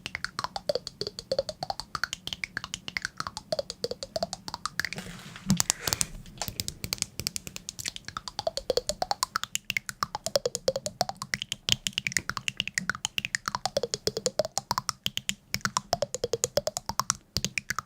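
Fast, even clicking or tapping, many clicks a second, with a ringing tone that sweeps down and back up about every second and a half. A louder rushing patch comes about five seconds in.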